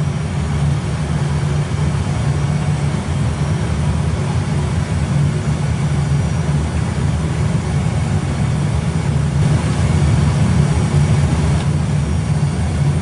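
Steady low rumble of an Airbus A320 flight deck in the initial climb, the engines held at flex takeoff thrust with airflow noise over it.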